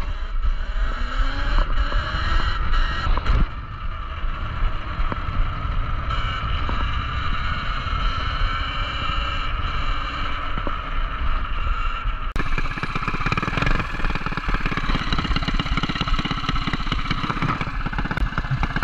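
Talaria Sting electric dirt bike riding: a motor whine that rises in pitch as it accelerates in the first couple of seconds, then holds steady over wind rumble on the microphone. About two-thirds of the way through, the sound turns rougher and noisier.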